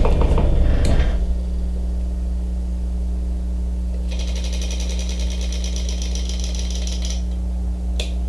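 Old bench grinder's electric motor running steadily with a low hum, just started on a new cord. A faint, even high-pitched rattle joins it for about three seconds midway.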